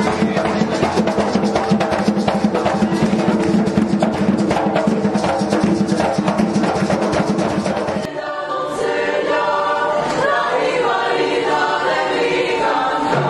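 Fast bomba drumming with dense hand strikes on barrel drums. About eight seconds in it cuts abruptly to music with a group of voices singing.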